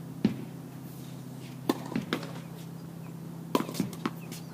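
Tennis balls being hit with rackets and bouncing on the court during a rally: sharp pops every second or two, some in quick pairs.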